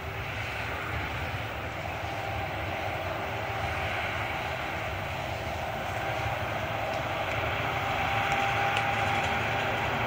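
John Deere 7530 tractor's six-cylinder diesel engine running steadily under load, pulling a Massey Ferguson 185 small square baler as it picks up hay, a steady drone with a faint whine that grows slightly louder toward the end.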